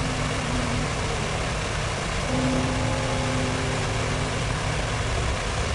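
Steady outdoor city ambience: the rushing noise of fountain water and traffic, with a low steady hum that breaks off briefly about a second in and again near the end.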